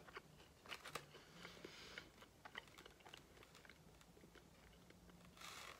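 Faint chewing of a crinkle-cut french fry: soft, scattered crunches and mouth clicks.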